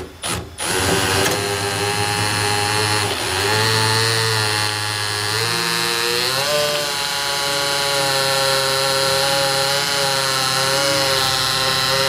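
Cordless drill with a 3/16-inch bit drilling out the rivets that hold a toolbox latch. The motor starts about half a second in after a brief blip and then runs steadily, its pitch sagging and rising a little as it goes.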